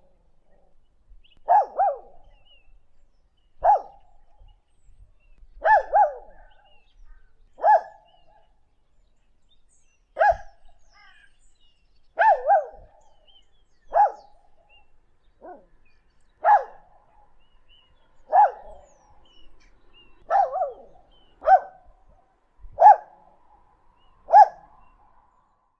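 A dog barking over and over, single barks and quick doubled barks about every two seconds, each with a natural echo off the surrounding countryside. Birds chirp faintly between the barks.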